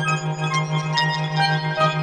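Make Noise modular synthesizer patch built around the Spectraphon spectral resynthesis module: a low note pulsing rapidly and steadily, with short, bright pitched notes scattered at changing pitches above it.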